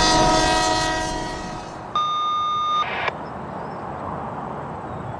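Diesel locomotive air horn sounding a multi-note chord that fades away over the first second or two. About two seconds in, a separate single-pitch tone sounds for about a second and cuts off suddenly, leaving only low background noise.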